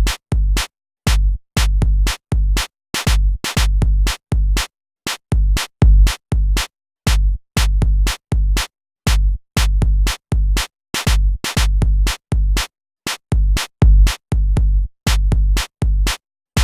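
Electronic outro music: a choppy beat of short, bass-heavy hits, about two a second, with silent gaps between them.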